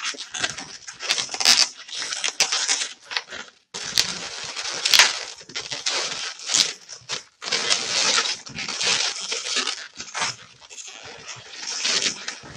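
Latex 260 twisting balloons rubbing and squeaking against each other and against the hands as they are wrapped round and twisted together. The sound comes in irregular bursts with two brief breaks.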